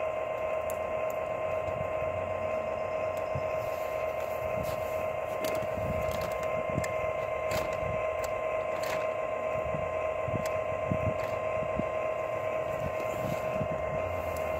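O gauge model train running slowly: a steady electric whine from the locomotive motor and smoke unit, with light clicks scattered throughout.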